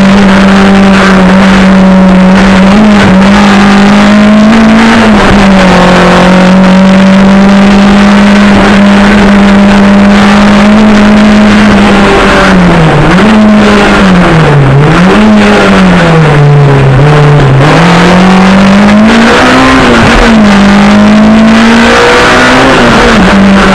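Engine of a tuned Volkswagen Golf hillclimb car, loud inside the cabin, holding a steady high note for about the first half, then dipping and climbing again several times as the revs change, and dropping away near the end.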